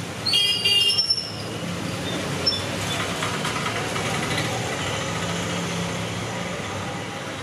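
Steady street noise with vehicle engines running, and a brief high-pitched tone about half a second in.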